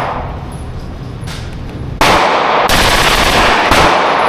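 Rapid fire from a gun fitted with a forced reset trigger: the echo of one string fading in the first second, then a fast, unbroken run of shots lasting about two seconds, starting about two seconds in.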